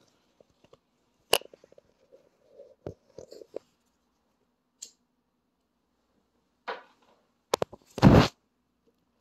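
Handling noise from a phone held in the hand: scattered clicks, knocks and small ticks, then a short loud rubbing rush about eight seconds in.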